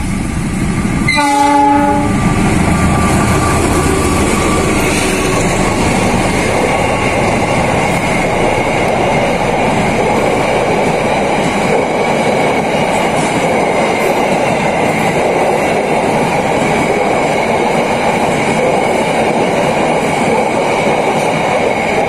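A diesel locomotive sounds its horn once, briefly, about a second in, then a long passenger train passes close by with a steady loud noise of steel wheels running on the rails.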